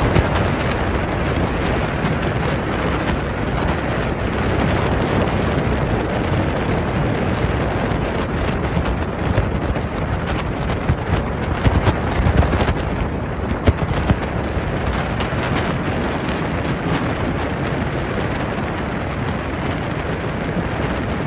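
Wind buffeting the microphone on a boat under way, a steady loud rushing with a few short sharper knocks in the middle.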